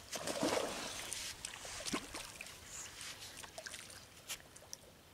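Water splashing and sloshing as a hooked fish is worked into a landing net at the pond's edge, loudest in the first second, then dying away to small scattered splashes.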